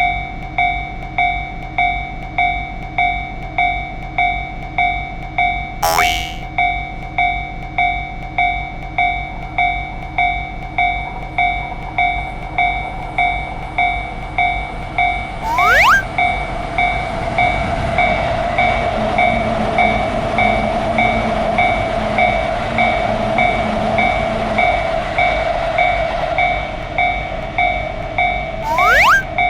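Japanese railroad crossing alarm ringing steadily, about three bell strikes every two seconds. Partway through, a train passes with a rushing noise for several seconds. Three brief sharp sounds with a quick rising sweep come at intervals over the ringing.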